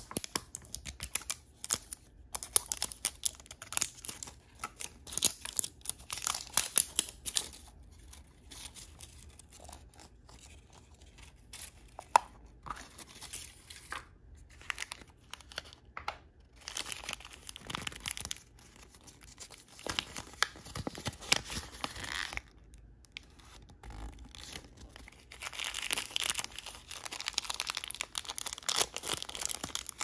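Toy blind-bag packaging being torn open and crinkled by hand. The rustling and crackling comes in several bursts, with short quieter pauses between them.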